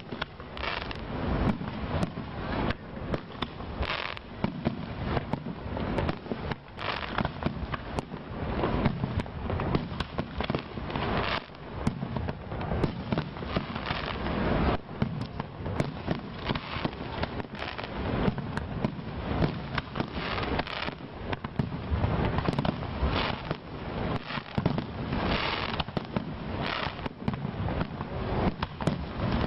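Fireworks display: a dense, unbroken barrage of bangs and crackles.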